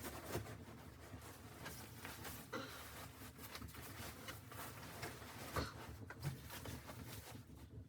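Faint, irregular clicks, knocks and rustles, as of things being handled up close.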